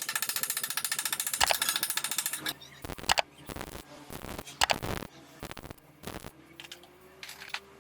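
Stick-welding arc crackling with a fast, even buzz for about two and a half seconds, then stopping. Several separate loud knocks follow.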